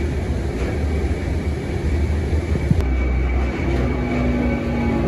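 Canal lock gate machinery running: a steady low rumble. From about three seconds in, the rack-and-pinion gear drive adds a steady hum with several held tones.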